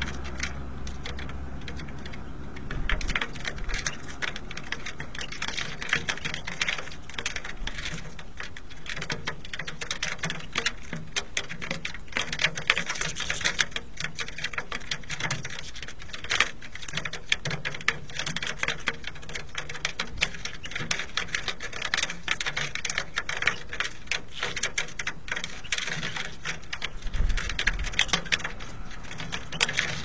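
A flock of European goldfinches pecking at and cracking sunflower seeds on a concrete ledge close to the microphone: a rapid, irregular clatter of beak taps and seed-husk clicks.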